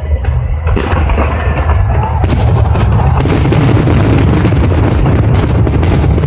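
Fireworks display going off: a dense, continuous run of booms and crackling bursts over a heavy low rumble, growing thicker about two seconds in.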